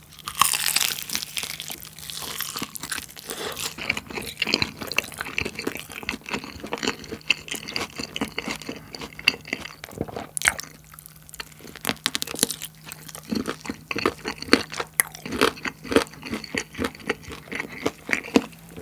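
Close-miked biting and chewing of a rosé-sauce-and-jelly-coated fried chicken drumstick: a loud bite about half a second in, then steady chewing full of small crackles.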